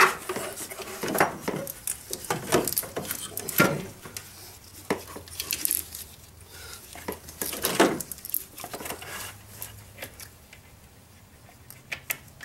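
Irregular metal clanks and knocks as an alternator is worked back down into its mounting in a tight engine bay, its case bumping against brackets and tubing. The knocks are busiest in the first half and thin out after about eight seconds.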